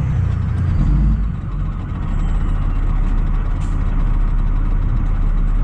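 Fire truck's engine running steadily with a low rumble.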